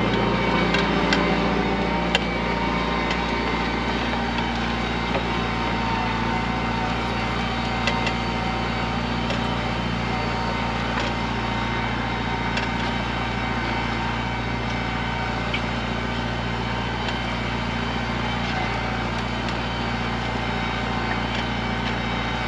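Tractor engine running steadily under load, pulling a four-furrow plough through heavy clay soil, with a few light knocks now and then.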